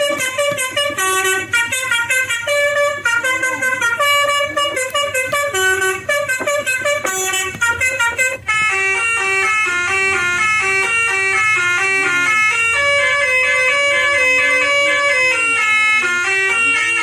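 Electric 'telolet basuri' bus-horn prototype built on an Arduino with a DFPlayer module, playing a quick tune of horn-like notes. For about the first eight seconds the notes are short and separated by brief gaps; after that the tune runs on without breaks, with some notes bending in pitch.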